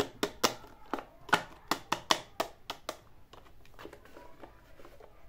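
Hands tapping and handling a hard plastic toy handbag: a quick, uneven run of about a dozen sharp plastic clicks over the first three seconds, then softer handling sounds.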